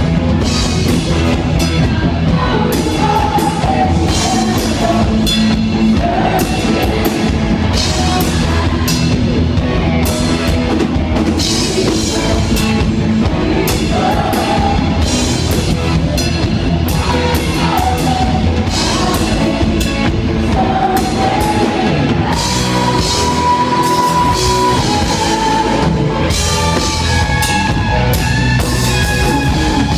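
Live rock band playing loud: a woman singing lead over drum kit, electric guitar and keyboard. Near the end she stops singing and the band plays on, the electric guitar carrying held melody notes.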